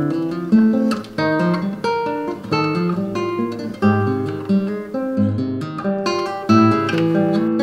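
Background music on acoustic guitar: a steady run of plucked and strummed notes.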